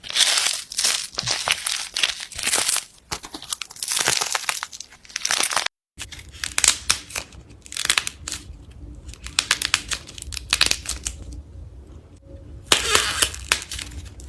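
Slime being squeezed and poked by hand, making dense crackling and popping clicks. About six seconds in it cuts briefly to silence and a second slime clip starts, with a low hum under the clicks.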